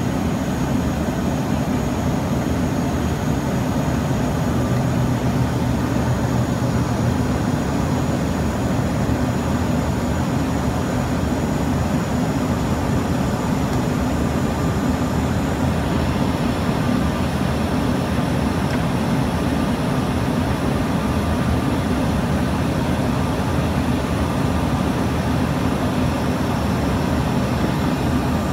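Steady cabin noise of an Embraer ERJ-145 regional jet in its climb after takeoff: a dense low rumble of airflow and its two rear-mounted Rolls-Royce AE 3007 turbofans, with a faint high whine held steady above it, heard from inside the cabin.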